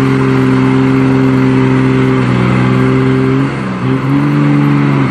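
Heavy truck engine running hard at high, steady revs while under load in deep mud. The revs sag briefly about three and a half seconds in, then pick up again.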